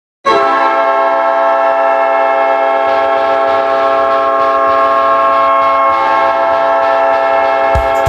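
Winnipeg Jets' arena goal horn giving one long, loud, steady blast that starts abruptly. Near the end, the drum beat of the goal song comes in under it.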